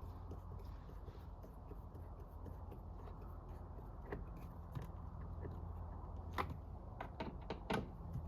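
Scattered sharp clicks and knocks of plastic door-panel parts and screws being handled as the panel is refitted, several in quick succession in the second half, over a steady low hum.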